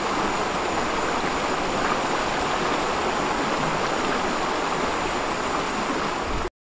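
Shallow, fast river rushing over rocks and mud: a steady, even noise of flowing water. The sound cuts out for a moment near the end.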